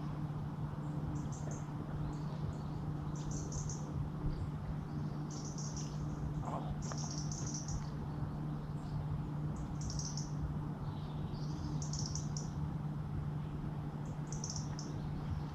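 A small bird chirping over and over, short high-pitched chirps about every second or two, over a steady low hum.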